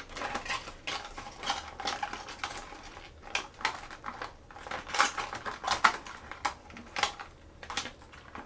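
Small hard plastic toy pieces and packaging being handled, clicking and clattering irregularly against each other, with the loudest clacks about five to six seconds in.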